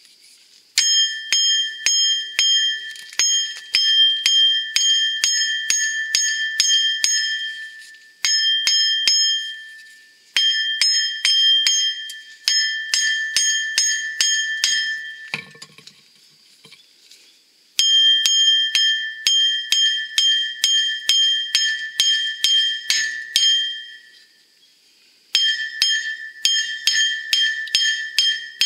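Small sledgehammer striking the steel hub of a truck's front wheel unit bearing, about two or three ringing metallic blows a second. The blows come in five runs with short pauses between them, to drive the rusted-in hub loose from the steering knuckle.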